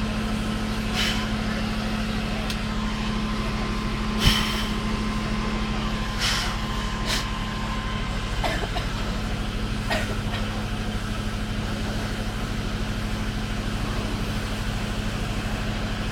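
Steady low drone of a fire engine's motor running, with a few short knocks and clanks from work on the burned-out car. The loudest knock comes about four seconds in.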